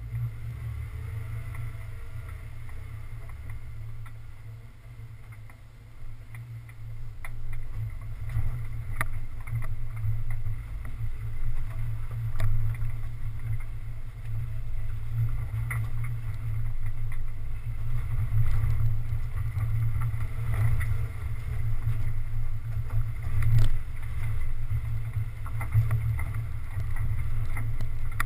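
Off-road 4x4 driving slowly along a rough dirt trail: a heavy low rumble of engine and wind buffeting on the microphone, louder after a few seconds, with scattered knocks and rattles as it rides over bumps.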